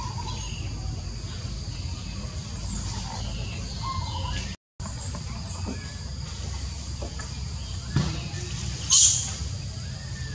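Outdoor ambience: a steady high insect drone with scattered short chirps over a low rumble. The sound cuts out for a moment near the middle, a sharp click comes about eight seconds in, and a short, loud, high-pitched squeak follows about a second later.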